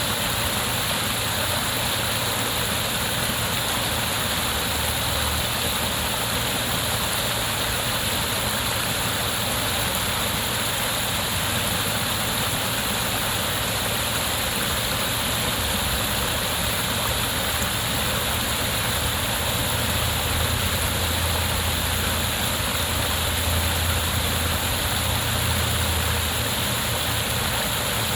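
Waterfall: a steady rush of falling water with a low rumble underneath that swells slightly about three quarters of the way through.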